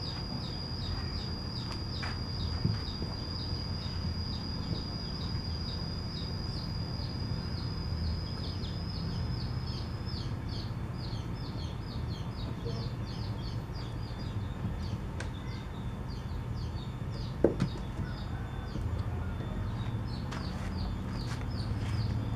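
Outdoor ambience over a low, steady rumble. A thin high-pitched call holds steady for about ten seconds, then breaks into rapid chirps of about four a second, and chirps again near the end. One sharp knock comes about three-quarters of the way through.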